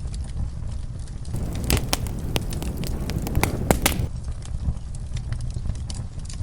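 Wood fire crackling in a fireplace: a steady low rumble with scattered sharp pops, and a denser run of louder pops from about a second and a half to four seconds in.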